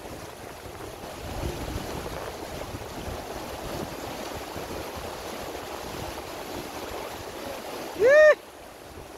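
Mountain stream rushing over rocks and small rapids, a steady wash of water. Near the end a short, loud call that rises and falls in pitch cuts through once.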